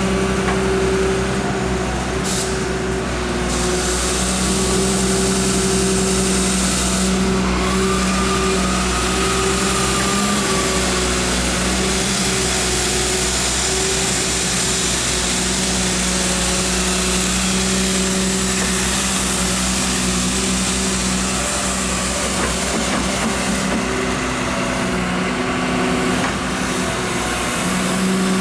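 Hyundai R140W wheeled excavator's diesel engine running steadily, with a short hiss about two seconds in.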